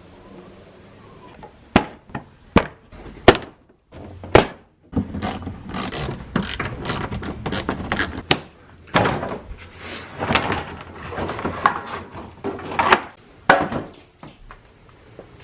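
Hand work with tools and parts: a few separate sharp clicks and knocks, then several seconds of irregular rattling and scraping.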